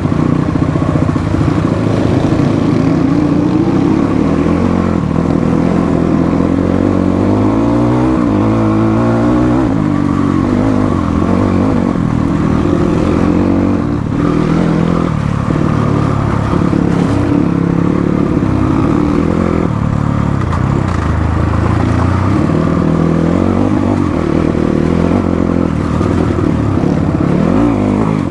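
Motorcycle engine running while riding an off-road trail, its pitch rising and falling repeatedly as the throttle opens and closes.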